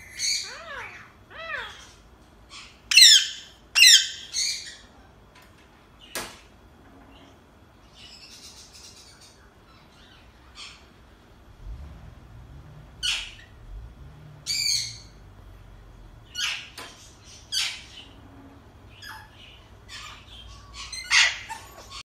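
Alexandrine parakeet calling in a string of short, separate calls and chirps, some arched in pitch and some shrill, with the loudest squawks about three and four seconds in.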